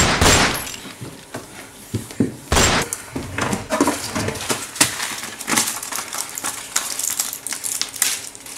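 A thump as someone drops to a wooden floor, then clattering and knocking as a low drawer is pulled open and rummaged through, with a second loud clatter about two and a half seconds in. Quick small clicks and rustles follow as a pill packet is handled and torn open.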